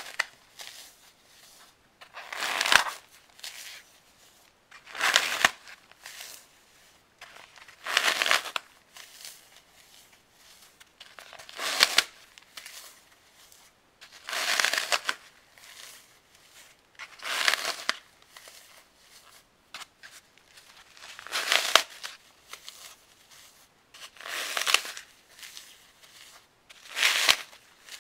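Hands squeezing and crushing a baked block of floral foam coated in cornstarch. Each squeeze gives a crisp crunching crackle, about ten in all, one every two to three seconds, with softer crumbling between.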